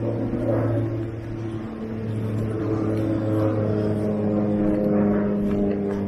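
An engine running steadily, its pitch shifting up a little a couple of times.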